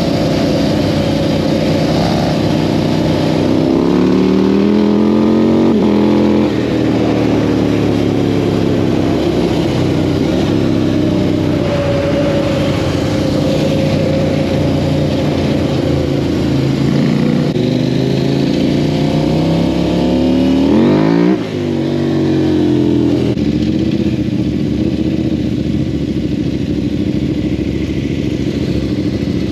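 Sport quad engine running hard. Its pitch climbs under acceleration and drops sharply at shifts or lifts, about six seconds in and again about twenty-one seconds in, then holds more steadily.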